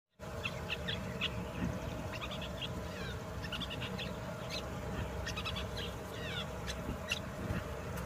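Long-tailed shrike singing: a loose string of short, varied chirps and quick down-slurred notes, over a steady low background rumble.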